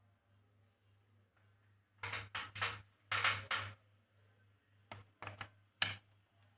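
Handling noises while working inside an air-conditioner unit: two short flurries of rustling and scraping, then several sharp clicks, over a faint low hum.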